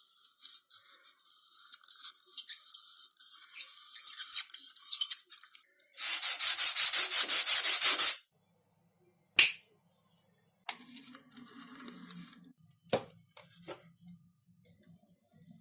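Sandpaper rubbing on XPS foam: scattered scratchy strokes, then about two seconds of fast, even back-and-forth sanding, the loudest part. After that come a single short scratch and a few fainter scrapes.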